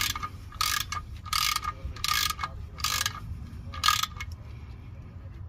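Hand ratchet with a 14 mm socket clicking through about six short back-strokes, stopping about four seconds in, as the oil drain plug with a new crush washer is run in and snugged down, not cranked tight.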